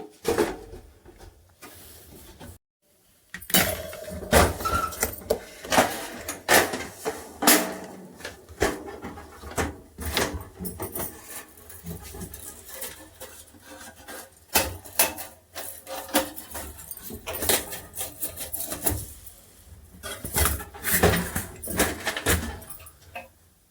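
Irregular clicks, knocks and clatter of hands working on an electric room heater's parts.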